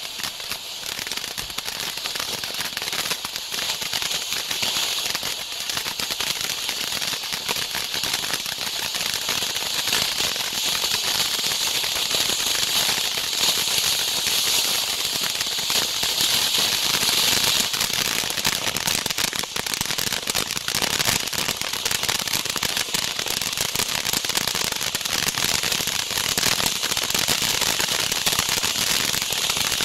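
Red Reign ground fountain firework (Heavyweight Fireworks HWT402) burning: a steady hiss of spraying sparks laced with dense crackling, growing louder over the first dozen seconds and then holding steady.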